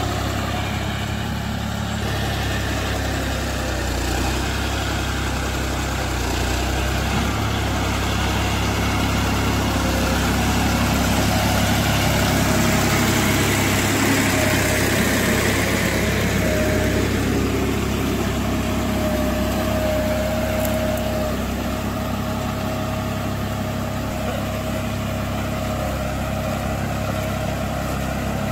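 John Deere 5310 tractor's three-cylinder diesel engine running steadily while it pulls a five-tine cultivator through soil. It grows a little louder near the middle and then eases off again.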